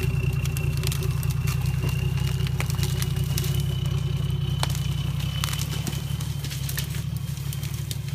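Nissan Patrol Y60 engine running steadily at low revs as the 4x4 crawls through mud and brush, with scattered sharp cracks of branches and twigs snapping against it. The engine grows slightly fainter near the end as the vehicle moves off.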